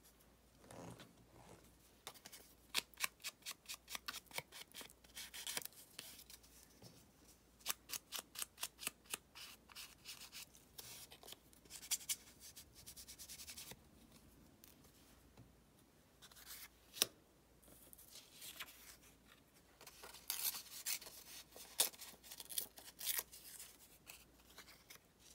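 Quiet paper handling: a kraft-paper tag with a metal paperclip being worked by hand, rustling, with several runs of quick, sharp clicks.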